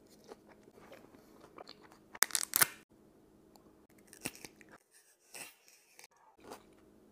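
Close-miked eating: a loud crunchy bite about two seconds in, then chewing with a few smaller crunches.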